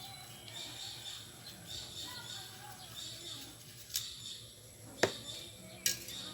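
Faint bird chirps in the background, with three sharp clicks or knocks in the second half, the loudest about five seconds in.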